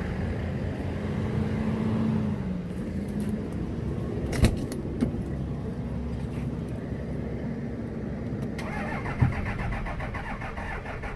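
Vehicle engine held at raised revs to feed a jump-start, its hum rising at the start and then running steady. Two sharp knocks come about 4.5 and 9 seconds in. A second, faster pulsing mechanical sound joins near the end.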